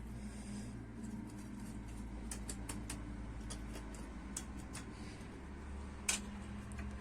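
Faint, scattered light clicks and taps of kitchen utensils, with a stronger tap about six seconds in, over a steady low hum, as grated lemon zest is added to the cake batter.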